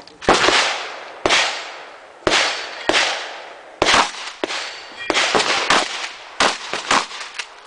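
A Mossberg 590 pump-action shotgun firing a rapid string of shots, each blast followed by a short echoing tail, spaced about a second apart at first and coming faster near the end.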